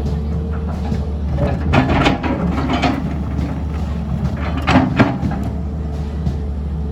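An engine running steadily with a low rumble, with a few knocks and clatters about two seconds in and again around five seconds.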